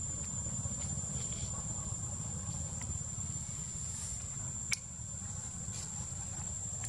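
A steady, high-pitched insect drone, with a low rumble beneath it and a single sharp click a little under five seconds in.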